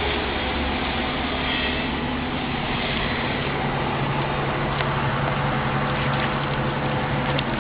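A boat's engine running steadily at idle, its low hum under a steady rush of water.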